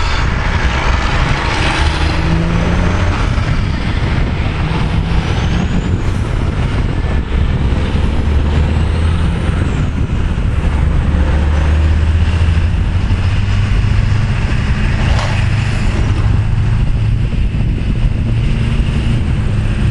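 Freight train boxcars rolling past: a steady low rumble of steel wheels on the rails, with one sharp clank about fifteen seconds in.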